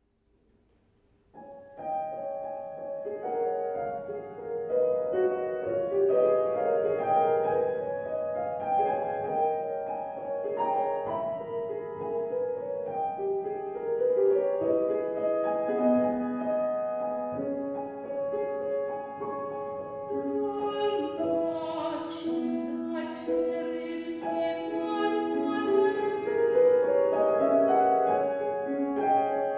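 Classical art song: a piano starts about a second and a half in, playing a gentle flowing figure of overlapping notes, and a soprano voice joins it about twenty seconds in.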